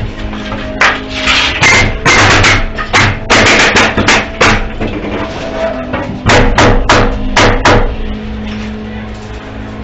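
Framing work on lumber: an irregular run of sharp, loud bangs and short hissing bursts, some in quick groups, stopping about eight seconds in, leaving a steady hum.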